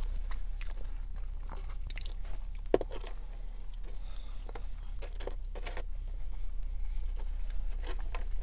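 Close-up chewing and biting of fried chicken fingers, fries and toast, wet mouth sounds with scattered small clicks and one sharper click about three seconds in, over a steady low hum.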